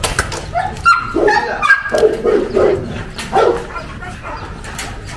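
A muzzled bully-type dog giving short whining cries and barks as it lunges and tears at a jute bite pillow. A few sharp knocks come in the first two seconds.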